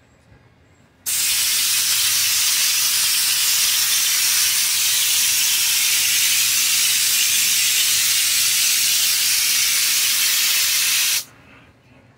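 Air-fed spray gun spraying Raptor bedliner in a thin coat: a steady hiss of compressed air and spray that starts abruptly about a second in and cuts off sharply about ten seconds later.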